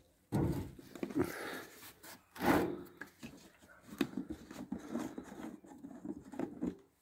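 Handling noise as a plastic jerry can is carried and lifted: irregular rustles, scrapes and knocks, the loudest knock about two and a half seconds in.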